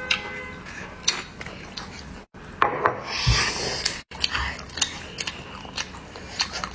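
Close-miked eating sounds: candy being chewed, with scattered sharp clicks and a longer rasping crunch about three seconds in.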